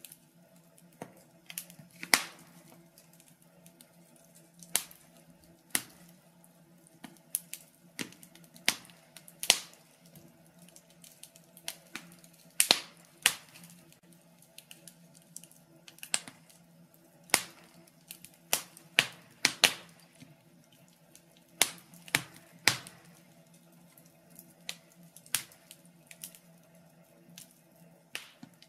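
Wood fire crackling in a stove: irregular sharp pops and snaps, a few loud ones among many faint ones, over a steady low hum.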